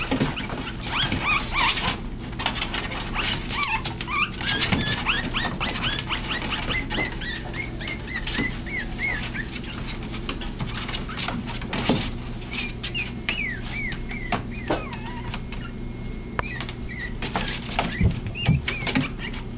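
Teacup Yorkshire Terrier puppies squeaking in many short, high-pitched chirps. Under them, frequent small scratches and pats from the puppies' paws on a plastic kiddie pool.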